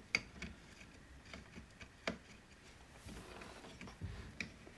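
A few sharp light clicks and a soft knock of screws and a tool against the chainsaw's top handle as the screws are fed toward their mounting holes. The clearest click comes about two seconds in and the knock near the end.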